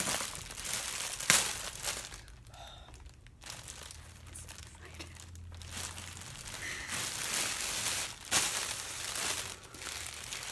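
Clear plastic poly bag crinkling and rustling as a backpack is pulled out of it, with sharp crackles about a second in and again near eight seconds.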